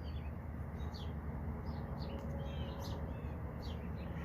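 Small birds chirping: a scatter of short, high chirps over a steady low background rumble.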